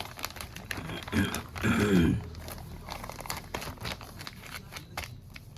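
Repeated small clicks and crinkling from parts and tools being handled during a smartphone repair, with a short vocal sound about a second in.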